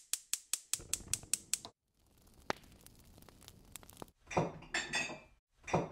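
Logo intro sound effects: a quick run of sharp, typewriter-like clicks, about five a second, for the first second and a half, then a lull with faint ticks and, near the end, a few louder noisy clatters.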